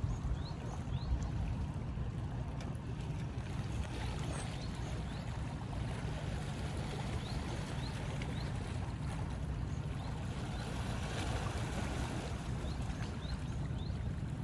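Wind buffeting the microphone in a low, uneven rumble over small waves lapping against shoreline rocks, with a few faint short high chirps now and then.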